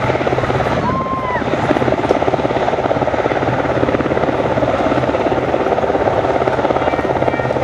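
Westland Sea King helicopter hovering low, its engines and rotor making a steady loud sound with a fast, even beat of the blades.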